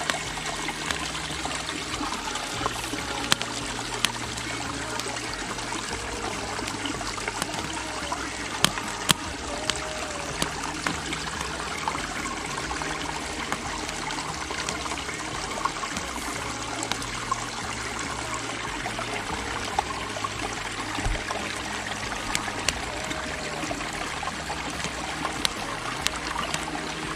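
Stream running steadily, with scattered sharp pops from a small kindling fire crackling as it catches.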